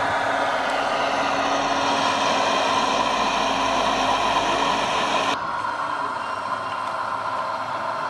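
Radio-controlled model trucks running with a steady engine-like drone and a constant hum. About five seconds in the sound changes abruptly to a quieter, duller one.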